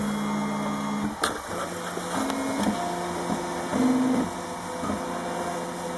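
Stepper motors of a RepRap Mendel 3D printer whining as the print head moves during a print, the pitch jumping between steady notes with each change of move. A single tick about a second in.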